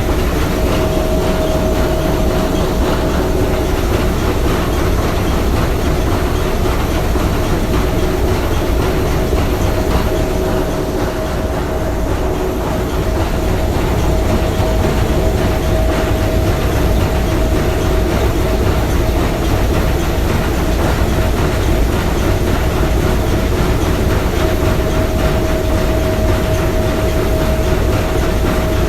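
Three-cylinder triple-expansion marine steam engine running steadily, with a steady whine that fades from about ten seconds in and comes back near the end.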